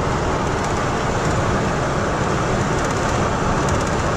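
Steady road and engine noise of a car cruising at motorway speed, heard from inside the cabin.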